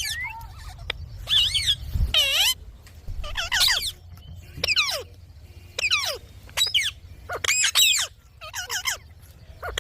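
Indian ringneck parakeet giving a series of short, high-pitched sliding calls, about one a second.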